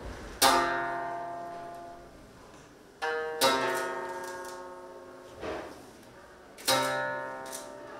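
Koto, the Japanese zither, played live in slow plucked chords: three strong strikes about three seconds apart, the last two each let ring and fade away.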